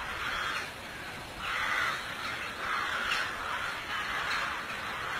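An animal calling harshly over and over, one call roughly every second, over a steady background hiss.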